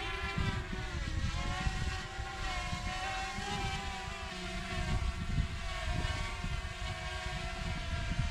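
DJI Mini 2 quadcopter's propellers whining steadily at close range as it hovers just after a hand launch, the pitch wavering a little. An irregular low rumble runs underneath.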